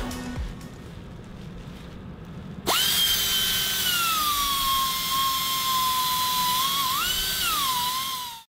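A high-pitched motor whine starts suddenly about two and a half seconds in and slowly sinks in pitch. Near the end it rises briefly, falls again and then cuts off. Before it there is only a faint hiss.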